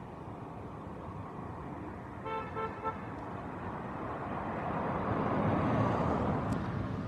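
A vehicle horn gives a quick run of short toots about two seconds in, over steady road traffic noise; then a vehicle passes, growing louder to a peak near the end and fading.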